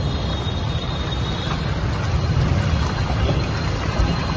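Steady noise of traffic on a waterlogged road: vehicle engines running low and water splashing and churning through knee-deep floodwater.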